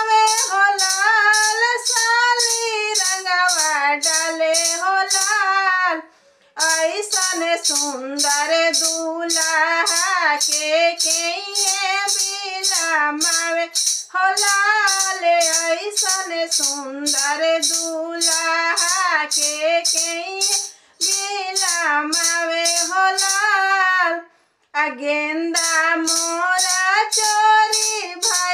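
A woman singing a North Indian folk wedding song (vivah geet) over a steady rattling percussion beat of about two strokes a second. Her singing breaks off briefly three times.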